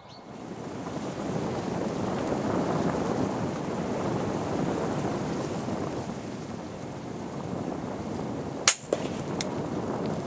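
Steady rushing noise, then about 8.7 s in a single sharp crack of a .22 rimfire rifle firing a 40-grain subsonic round, followed by a smaller sharp click under a second later.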